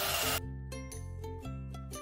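An electric drill running, spinning a spool that winds kite string, cut off abruptly about half a second in; after that, background music of separate notes changing a few times a second.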